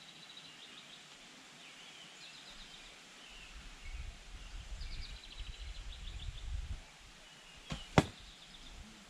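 A songbird repeats short high trills over a low wind rumble. Near the end comes a faint click, then a single sharp crack a third of a second later: a bow shot and the arrow striking the target.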